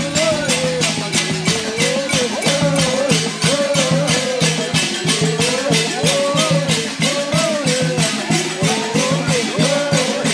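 Traditional music: a wavering sung melody over a shaker or rattle beating evenly about three or four times a second, with a steady low drone underneath.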